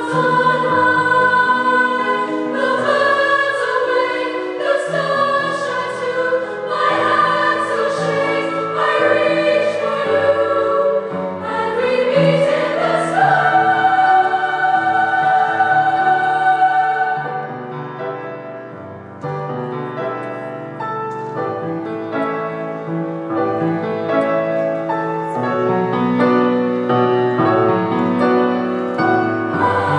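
Choir singing in parts, accompanied by piano. About halfway through, the voices slide up into a long held note; the music then eases off briefly before building again.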